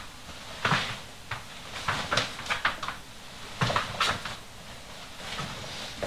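Footsteps on a wooden floor: a few irregular knocks and scuffs, some closely paired, with quieter stretches between.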